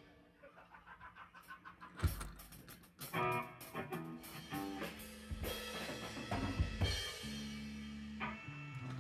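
Background rock music with a quiet break, a single loud drum hit about two seconds in, then full drums and bass from about three seconds.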